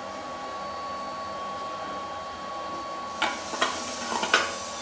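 Four or five sharp plastic clicks and knocks about three to four and a half seconds in, as the fuel cap is screwed onto the small petrol engine's steel fuel tank. They sit over a steady hum with a thin high whine.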